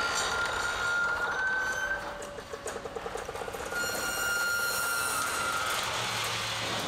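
Factory material-transport vehicle running with a steady high-pitched whine over a rattling noise. The whine holds for about two seconds, drops out, and comes back for another two seconds partway through.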